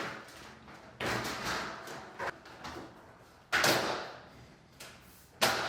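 Bosch dishwasher side panel being fitted back on its tabs: three sudden knocks, each ringing briefly, with a small click between the first two, as the panel is lined up and pushed up into place.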